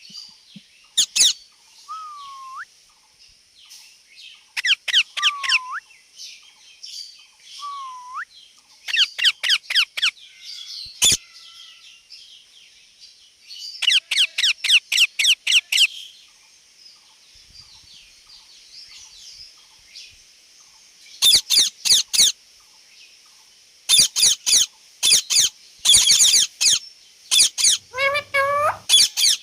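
Indian ringneck parakeet calling in rapid bursts of sharp, high-pitched screeches, several a second, with pauses between the bursts. In the first eight seconds it also gives three short whistles that dip and then rise.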